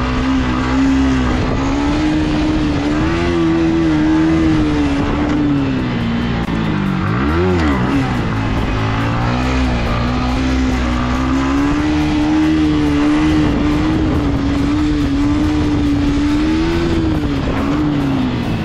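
Motorcycle engine running under throttle while being ridden, with a steady engine note. About seven seconds in the note drops away, then revs up sharply and settles again. It eases off near the end.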